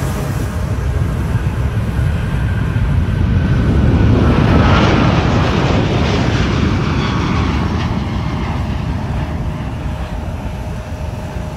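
Boeing 777 twin-engine jet airliner taking off at takeoff thrust: a loud jet roar that swells to its loudest about four to five seconds in as it lifts off and passes, with a faint engine whine sliding slightly down in pitch, then slowly eases as it climbs away.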